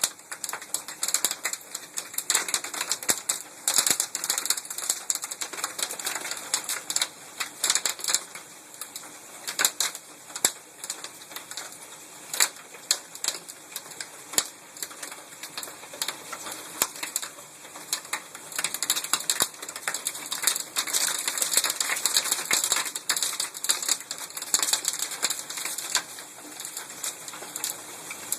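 Hailstones falling and striking a hard surface: a dense, irregular clatter of sharp ticks, growing busier a little past the middle.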